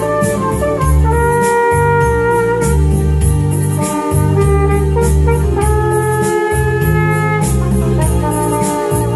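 Flugelhorn playing a slow melody in long held notes over an electronic backing of a stepping bass line and steady drum-machine cymbal ticks.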